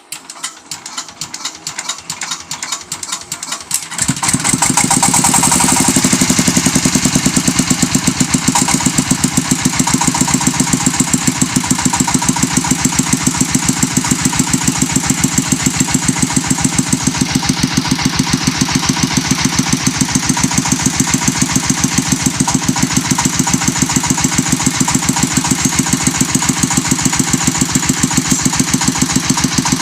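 Engine of a brick-making machine ticking over, then picking up about four seconds in and running loud and steady with a fast, even knocking beat.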